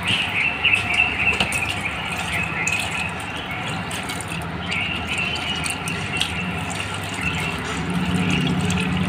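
Transformer oil streaming out of a hose into a plastic bucket as the transformer tank is drained, over a steady low hum.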